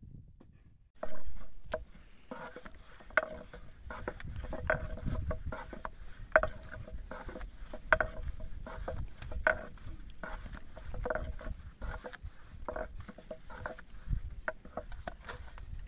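Thin wooden rolling pin rolling and knocking on a round wooden board as flatbread dough is rolled out thin: wooden rubbing with a knock every second or so. The sound starts about a second in with a louder knock.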